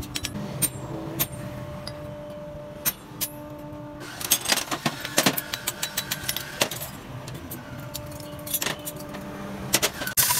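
Steel sickle blade clinking and clanking against the anvil and a bending tool in its hardy hole as it is bent and tapped into its curve. There are scattered clicks at first, then a rapid run of louder metal knocks about four seconds in and another near the end, over a low steady hum.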